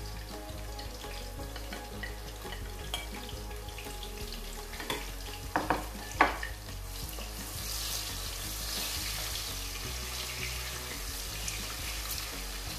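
Sliced red onions sizzling steadily in hot oil in a pot, with a few sharp knocks of the spatula against the cookware about six seconds in. The sizzle grows brighter a little after that as the onions settle into the oil.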